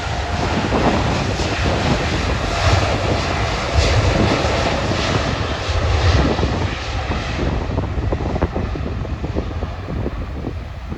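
Boeing 787 airliner's turbofan engines running close by, a dense jet rumble and hiss whose higher part fades from about seven seconds in as the aircraft draws away. Wind buffets the microphone throughout.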